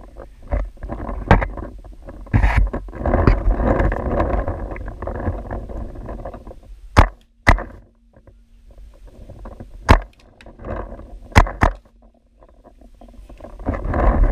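Paintball markers firing: several sharp pops, some in quick pairs, over a rumbling rustle of handling noise.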